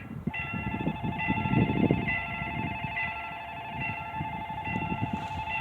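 Level-crossing warning bell ringing electronically, a repeating ringing pattern with a steady tone joining about a third of a second in, warning that a train is approaching. Irregular low rumbling runs beneath, strongest around the second and a half to two second mark.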